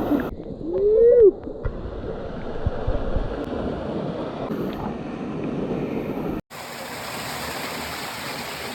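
Steady rushing wash of a waterfall pouring into a rainforest pool. About a second in, a short voice-like call rises and falls in pitch, the loudest thing heard. Near the end the sound cuts off for an instant and the water noise comes back brighter.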